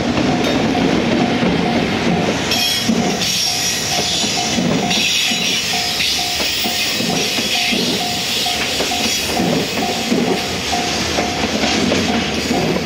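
JR Freight container train hauled by an EF210 electric locomotive rolling past at close range, the wagons' wheels clattering over the rail joints in a steady rhythm about once a second.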